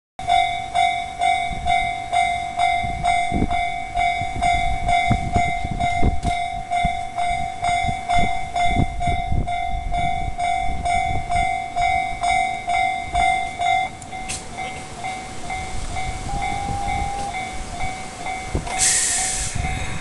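Japanese level-crossing alarm ringing its fast repeating 'kan-kan' tone, about three strokes a second, while a JR Central 373-series electric train rolls slowly over the crossing with low wheel thuds on the rail joints. About 14 s in the alarm drops much quieter, and near the end there is a short burst of air hiss.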